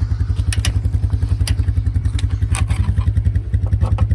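Small single-cylinder ATV engine idling with a steady, even low putter, with a few sharp clicks and clatters of gear being handled on top.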